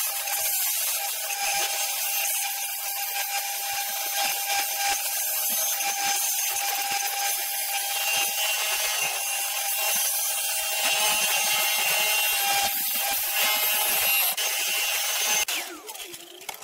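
Electric dust collector motor running steadily with a constant whine, then cutting off about a second before the end.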